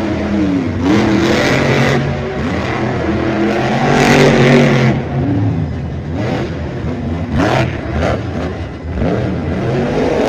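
El Toro Loco monster truck's supercharged methanol V8 revving hard, its pitch rising and falling again and again as the throttle is worked, with the loudest surge about four seconds in.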